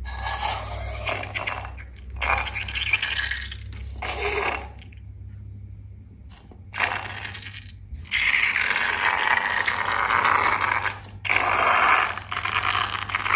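Glossy slime being worked by hand, with sticky crackling and scraping in several bursts and a quieter pause partway through. The longest burst comes in the second half.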